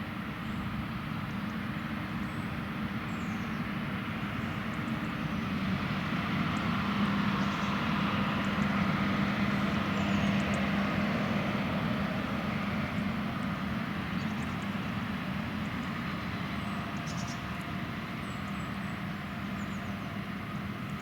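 John Deere X9 1100 combine harvester running steadily as it harvests oilseed rape, a constant machine drone with a steady low hum. It grows louder about a third of the way in, as if passing close, then eases off.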